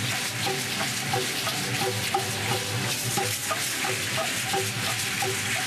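Many Aztec dancers' ankle seed-pod rattles (ayoyotes) shaking together as they dance, a dense, steady rattling hiss, with a low beat and short repeated higher notes underneath.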